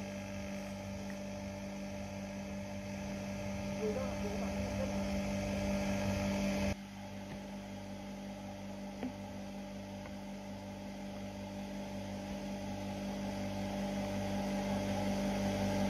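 Multipurpose crusher's motor running with a steady hum and a slow regular throb.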